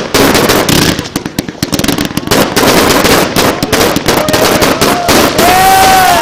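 Fireworks going off in a rapid, dense string of bangs and crackles. From about four seconds in, a series of short whistles joins them, running into a longer whistle near the end.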